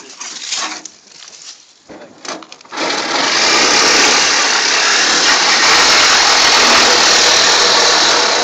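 Handheld power tool starting up about three seconds in and running steadily, a loud even whirring noise, after a few scattered knocks and rattles.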